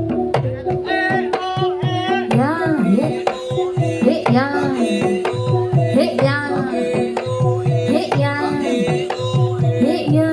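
Live Jathilan music: a Javanese kendang hand drum plays steady rhythmic strokes whose pitch swoops up and down, over steady held melodic notes from the accompanying ensemble.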